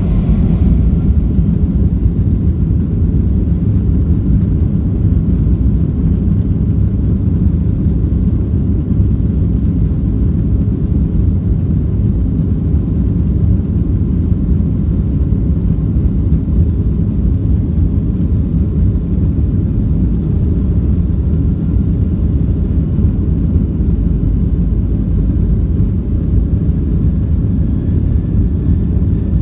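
Boeing 737-800's CFM56 jet engines and airframe making a loud, steady low rumble during the takeoff.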